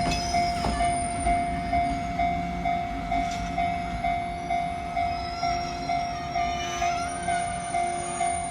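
Japanese railway level-crossing alarm sounding its JR-style warning tone, a single electronic bell note struck evenly about twice a second.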